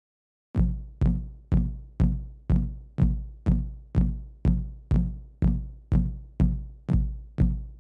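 Electronic kick drum from a drum machine playing a steady beat of about two hits a second, starting about half a second in, with no other instrument over it.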